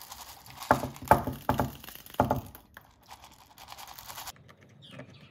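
Black peppercorns poured from a plastic tub into a pepper mill, rattling and clicking as they fall in, with a run of louder clicks about one to two seconds in, then fainter scattered ticks.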